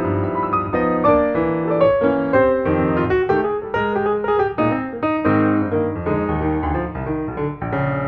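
Background piano music, a steady run of notes.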